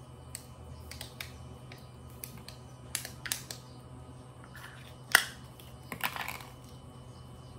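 Small plastic toys clicking and tapping as they are handled and mouthed by baby monkeys, in scattered light clicks with one sharper click about five seconds in and a quick cluster a second later, over a low steady hum.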